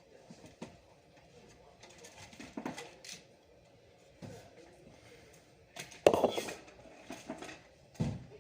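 Irregular knocks and clatter of hard parts being handled while working inside a desktop PC case, with the loudest clack about six seconds in and another just before the end.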